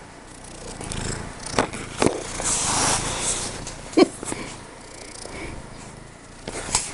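Kitten getting over a cold sneezing: several short, sharp sneezes, the loudest about four seconds in, with a longer hissing snuffle just before it.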